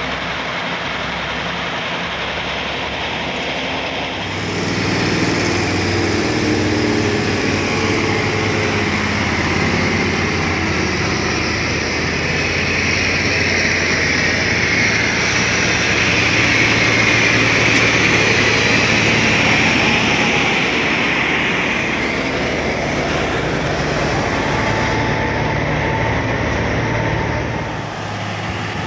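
Heavy diesel engines of a loaded logging truck and a bulldozer running under load, a steady engine drone that gets louder about four seconds in.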